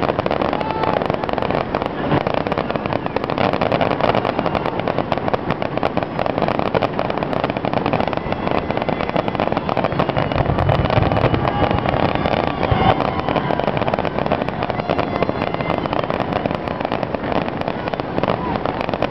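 A rapid, unbroken barrage of aerial firework bursts with crackling, many bangs a second and no pauses.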